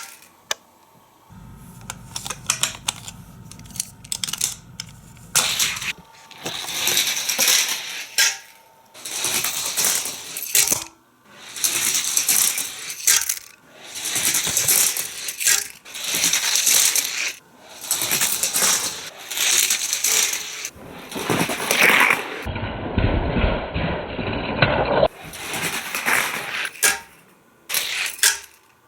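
A die-cast Hot Wheels car rattling and clattering along plastic track pieces, run after run, as a string of bursts a second or two long with sharp clicks between them. A brief low rumble comes about two-thirds of the way through.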